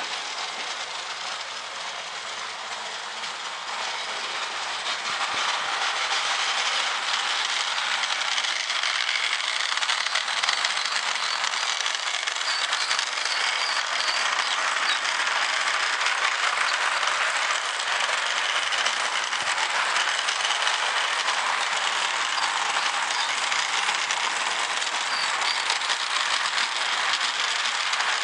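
Lionel O gauge toy train running on its metal track: a steady noisy rush of small metal wheels on rail that grows louder about five seconds in as the train nears, then holds steady.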